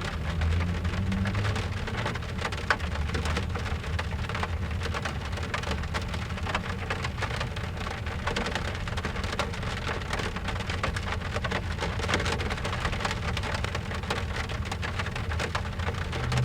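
Steady rain pattering on a car's roof and glass, heard from inside the cabin as a dense spatter of drops. A low rumble runs underneath, and one sharper drop ticks a little under three seconds in.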